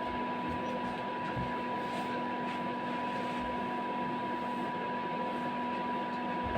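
Electric fan running: a steady motor hum and airflow noise with a constant high whine.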